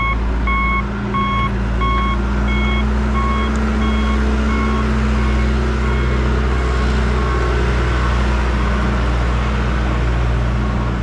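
Backhoe diesel engine running steadily while its backup alarm beeps about one and a half times a second as it reverses; the beeping fades out about halfway through and the engine carries on.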